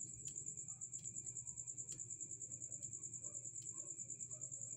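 Crickets chirping: a steady, high, rapidly pulsing trill, with a few sharp clicks from stones being handled.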